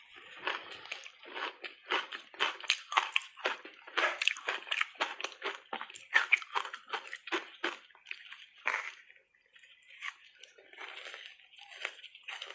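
Reshaped ice coated in matcha powder being bitten and chewed: a dense run of sharp crunches for about eight seconds, then softer, wetter chewing near the end.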